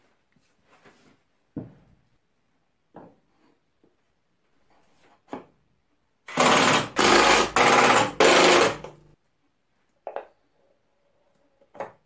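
Light knocks of plywood vise parts being handled, then about halfway a loud machine-like noise in four quick bursts lasting about three seconds, followed by two more knocks near the end.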